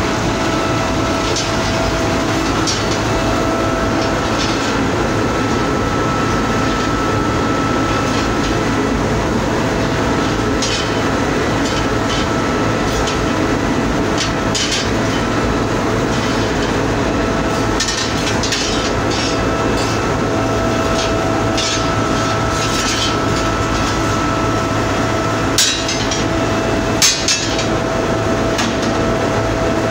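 Steady foundry shop noise: machinery and furnace drone with a steady high hum, and scattered metallic clinks and clatters. There are a couple of louder knocks near the end.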